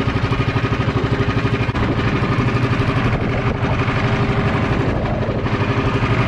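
A small engine running steadily at constant speed, with a fast, even pulse.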